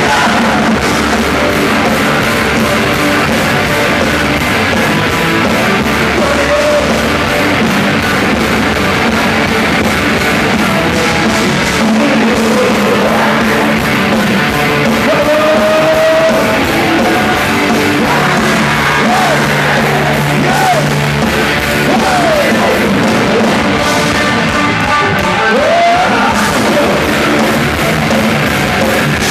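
A rock band playing loud and live, with singing over the band.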